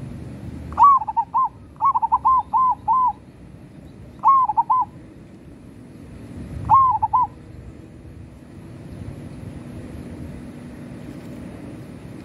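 Zebra dove (perkutut) cooing: four short bursts of quick repeated coos in the first seven seconds, then it falls silent.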